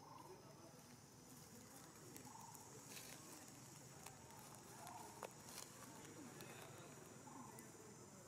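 Faint outdoor ambience: a steady high-pitched insect drone, with a few soft short calls every couple of seconds and some light clicks near the middle.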